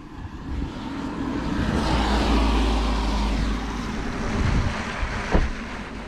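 A vehicle passes on a wet road: its tyre hiss and low rumble swell over a couple of seconds, then fade. A single sharp thump comes near the end.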